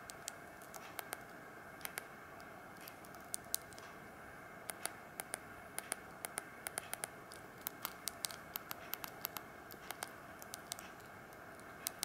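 Sony Ericsson J110i keypad buttons clicking under the thumb, dozens of small irregular clicks, busier after the first few seconds, with no key tones because the key sound is set to silent. A faint steady hiss lies underneath.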